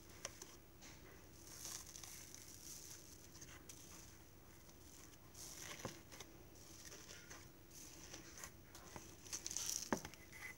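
Iceberg slime being squished and pulled by hand in a plastic bowl: faint crackling and crinkling as its stiffened crust breaks up, with a couple of sharp clicks and a busier spell near the end.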